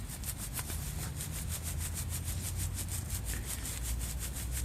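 Fast, even rasping strokes, about eight a second, over a steady low rumble.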